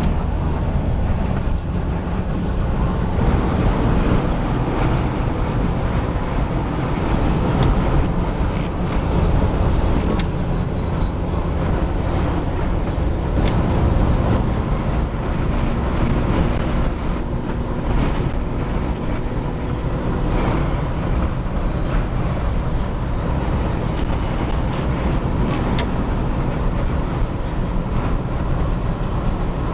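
Steady cabin noise from a smart fortwo being driven at highway speed: its small three-cylinder engine, tyre and road noise and wind against the car, mostly low and constant.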